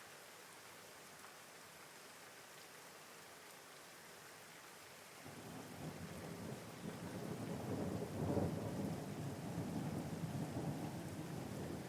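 Steady rain falling, with a roll of thunder rumbling in about five seconds in, swelling to its loudest a few seconds later and still rumbling at the end.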